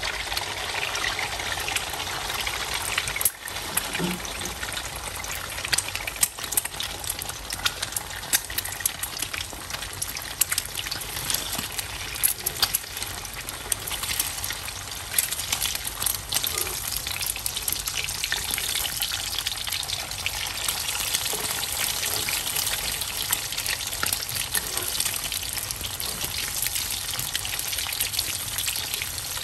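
Eggs frying in hot oil in a wok over high heat: a steady sizzle full of fine crackling and popping.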